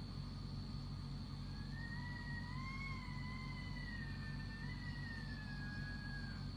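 A long, faint, wavering high-pitched cry or wail that starts about a second and a half in and slowly rises and falls for about five seconds. It is the unexplained night scream, its source unknown, and it sits over a steady low hum and a constant high whine.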